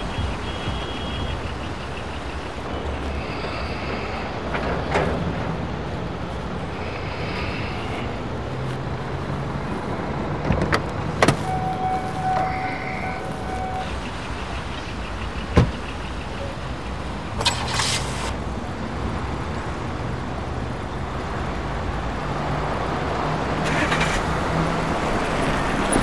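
Steady street traffic ambience, with a few sharp clicks around the middle and a short steady beep about halfway through.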